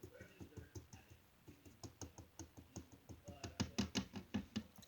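A pencil stirring hand-sanitizer slime in a small container, making a rapid run of faint tapping clicks against the sides. The clicks grow quicker and louder near the end.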